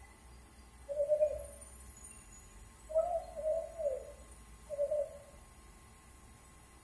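A dove cooing: short low coos, one about a second in, a quick run of three or four around three to four seconds, and another near five seconds.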